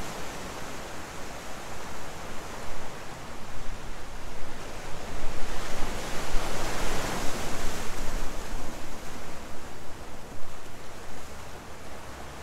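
Ocean surf breaking and washing over a rocky shore, a steady rush that swells louder in the middle as a wave comes in, then eases.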